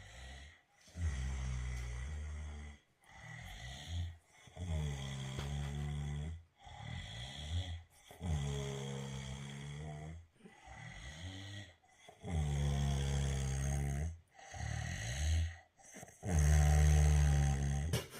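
Loud snoring: a regular run of pitched, rasping breaths, each lasting one to two seconds with short pauses between, long loud snores alternating with shorter, quieter ones. The last snore, near the end, is the loudest.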